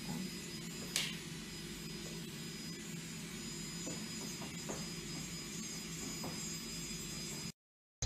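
Steady background hum and hiss of room tone, with a brief sharp click about a second in and a few faint ticks later. It cuts off suddenly to silence shortly before the end.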